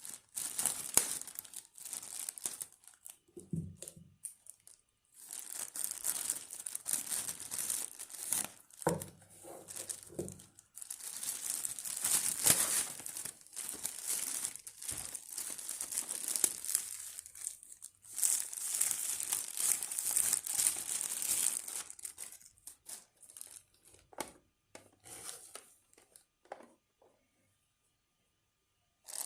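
Packaging crinkling and rustling as it is handled and pulled open, in irregular stretches with short pauses, plus a couple of duller handling knocks.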